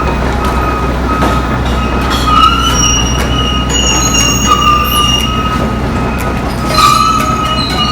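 Steel crawler tracks of an excavator squealing and clanking as it travels, over the low, steady rumble of its diesel engine. The squeals come and go, with a louder one about seven seconds in.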